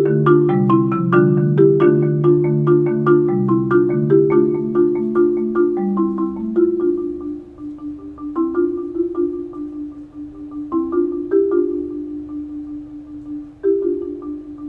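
Marimba played solo: a busy run of quick mallet notes over chords sustained by fast repeated strokes. About halfway through it softens and thins to held chords with a repeated high note, broken by a few louder accented strokes.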